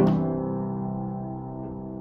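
Upright piano: a chord struck once at the start and left to ring, slowly fading away.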